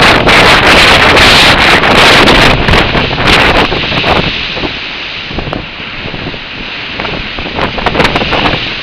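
Gale-force wind buffeting the microphone over storm surf. The gusts are loudest for the first few seconds, then ease to a lower rush of wind and waves with scattered crackles.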